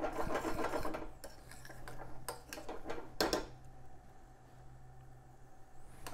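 A metal spoon stirring and scraping thick squid-ink risotto in a stainless steel sauté pan, busiest in the first second. There is a sharp clink of spoon on pan a little over three seconds in, and after that only quieter stirring.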